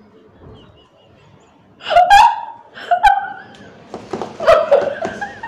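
Women laughing hard, with gasps: after a quiet first couple of seconds, loud bursts of laughter come about two, three and four seconds in.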